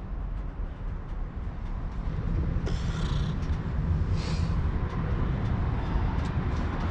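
A steady low rumble, with short rustles about three and four seconds in as a person climbs out of a car seat.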